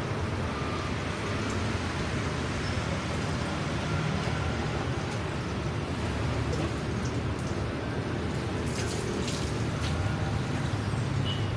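Steady splashing and trickling of water, with a few light knocks about nine seconds in.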